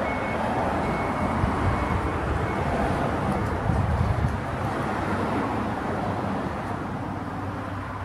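Street traffic: the steady rumble of cars and tyres on the road, slowly fading over the second half.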